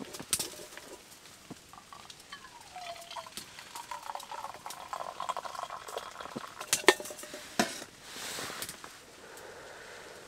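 Tea being poured from a small titanium teapot into a cup: a trickling pour with a gliding pitch, followed by a couple of sharp metal clinks from the pot and cup about seven seconds in.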